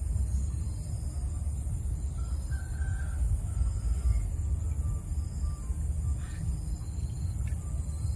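Outdoor ambience: a steady low rumble under a high, pulsing insect drone, with a few faint bird calls about three seconds in.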